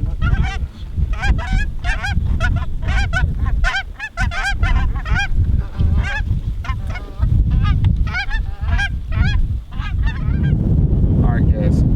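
Geese honking and clucking, many short calls in quick succession for about ten seconds, thinning out near the end, over a low wind rumble on the microphone.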